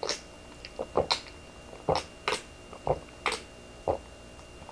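A person drinking soda straight from a can, gulping and swallowing in a row of about eight short, separate sounds, one every half second or so.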